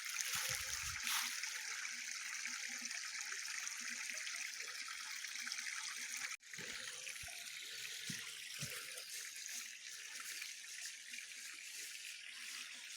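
Running water trickling steadily, with a brief break about halfway through.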